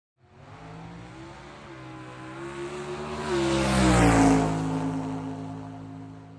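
Race car approaching and passing by. Its engine note grows louder to a peak about four seconds in, then drops in pitch and fades away.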